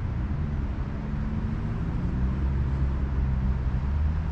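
Ninebot electric scooter riding: steady rumble of the wheels and wind on the microphone, with a low hum that drifts slightly in pitch.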